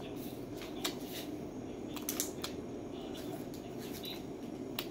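Eating dried-fish snacks from a foil packet: a few short crackles and crunches from the packet and chewing, over a steady low room hum.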